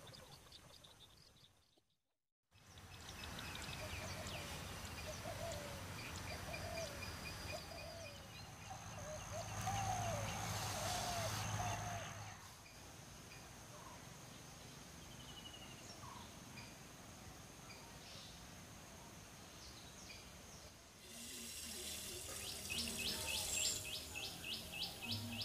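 Outdoor ambience with several birds calling: short high chirps and a warbling call repeated several times. A brief gap of silence comes about two seconds in. Near the end a steady hiss begins as dry rice grains pour into a clay pot.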